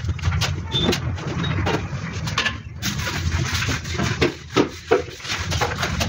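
Concrete mixer engine running with a steady low drone, with scattered short knocks and scrapes from work on the freshly poured concrete slab.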